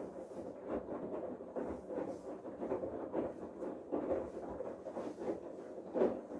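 Bosch Serie 8 washing machine in its main wash: the drum turns and churns the wet laundry in irregular swishes and soft knocks, over a faint steady hum.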